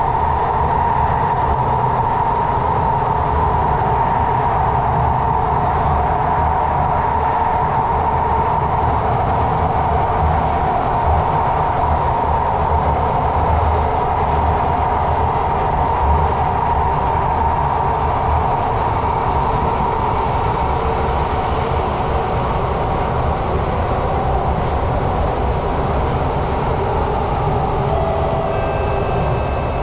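Cabin noise of a Thomson–East Coast Line MRT train running between stations: a steady low rumble with a constant whine from the drive. A few short tones sound near the end.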